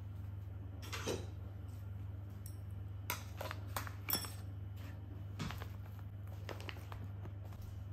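Hard plastic lunchbox knocking and scraping against an insulated lunch bag as it is pushed in and adjusted: a handful of short taps and clicks, the loudest about four seconds in, over a steady low hum.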